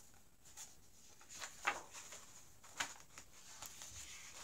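Pages of a hardcover picture book being turned by hand: a few short, soft paper flicks and rustles, the loudest about a second and a half in.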